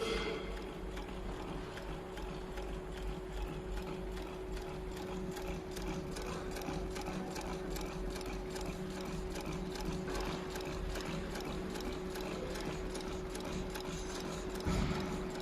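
RP550 1560 double-needle sewing machine running, a rapid, even clatter of stitching over a steady motor hum. A brief low thump sounds near the end.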